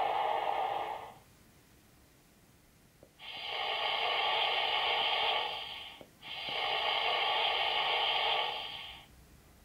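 Sanders sound from the Roads and Rails Loksound 5 DCC sound decoder in a Heljan Kestrel model diesel, played through the model's speaker: two bursts of compressed-air hiss of nearly three seconds each, separated by a brief gap. A hiss left over from the previous function dies away within the first second.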